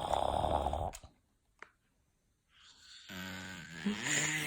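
A one-year-old toddler imitating snoring: a loud rasping snore-snort lasting about a second, then after a pause a second, longer snore that turns into a steady voiced drone from about three seconds in.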